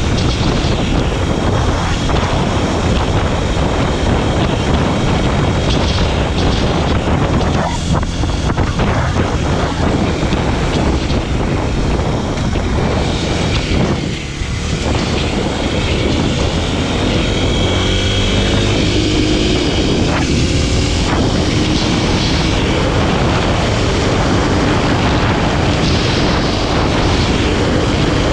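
Kawasaki KLX300SM's single-cylinder four-stroke engine running under way, with wind rushing past. The engine eases off briefly about halfway through, then its note rises and holds steady near the end.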